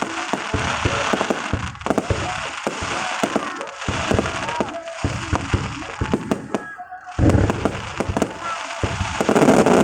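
Fireworks display: a dense run of bangs and crackling, with a louder burst of booms about seven seconds in and again near the end.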